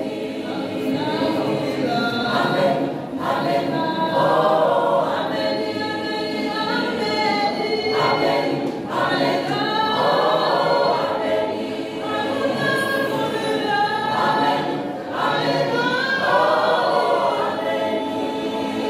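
Mixed choir of women's and men's voices singing together in harmony, in phrases a few seconds long with short breaks between them.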